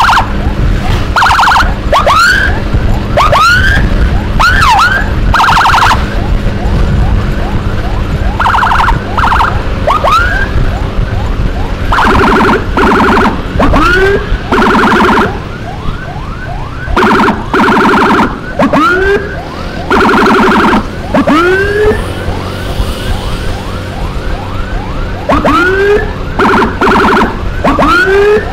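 Electronic emergency siren switching between patterns: quick rising whoops and second-long blocks of rapid pulsing warble, repeated over and over. Under it runs a steady low engine and road rumble.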